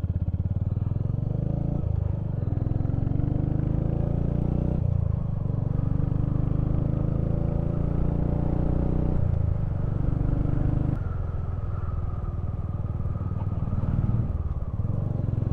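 Royal Enfield Hunter 350's 349 cc single-cylinder engine running under way, heard from the rider's seat, its note rising and dropping back several times. The engine is new and still being run in.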